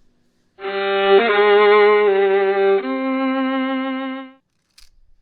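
A short violin phrase: three held notes with a slight vibrato, the last one lower, lasting about four seconds, then a faint click.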